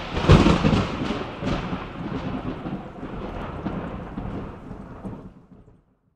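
Thunderclap sound effect: a loud crack about a third of a second in, then a long crackling rumble that fades away over about five seconds.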